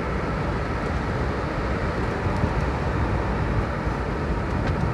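Steady road and wind noise inside a moving car's cabin.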